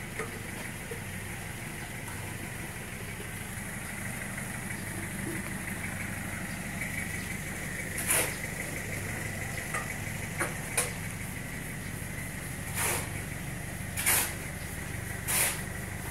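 A motor running steadily with a low hum and a faint high whine. From about eight seconds in, four short hisses come a second or two apart, with a couple of sharp clicks among them.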